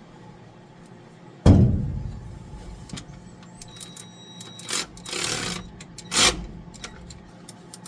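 Workshop handling noises: a loud knock with a ringing tail about a second and a half in, then a short scrape and a second sharp knock, with small clicks, from tools and parts being handled on the truck.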